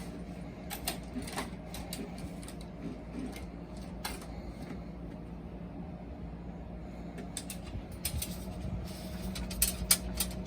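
Steady low mechanical hum with scattered light clicks and taps, more of them near the end.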